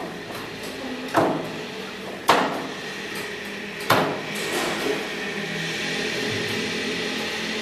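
Three sharp knocks on something hard: the first two about a second apart, the third about a second and a half later. A steady hiss runs underneath.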